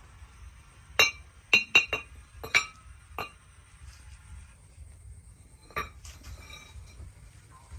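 Sharp metal-on-metal clinks, each ringing briefly at the same bright pitch: a quick irregular run of about seven strikes, then a single strike a few seconds later.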